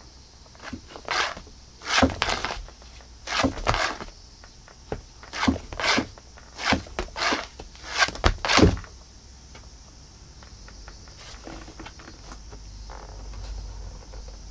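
A cat scrambling and swatting inside a cardboard box, its paws and body scraping and rustling against the cardboard in a series of quick bursts through the first nine seconds, then going quiet.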